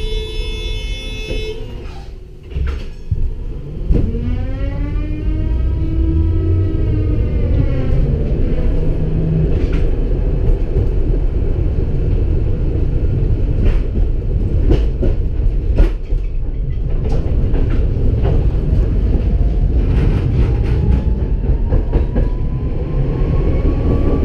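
Tatra K2 articulated tram pulling away and gathering speed: the traction motors' whine rises in pitch over a steady rumble of wheels on rail, with sharp knocks as the wheels cross rail joints and points. Near the end a second whine climbs slowly as it accelerates again.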